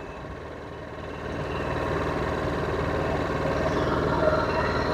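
Powerhorse 7500i inverter generator's engine running steadily, growing louder about a second in and then holding even.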